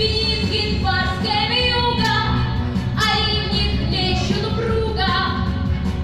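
A girl singing a song into a handheld microphone over instrumental accompaniment.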